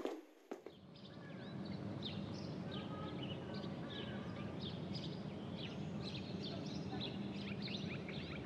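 Many birds chirping in quick, overlapping calls over a steady low rumble of background noise, fading in about half a second in.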